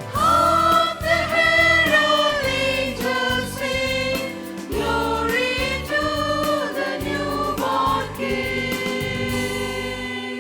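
A group of voices singing a Christian Christmas song over instrumental backing, ending on a long held note that fades near the end.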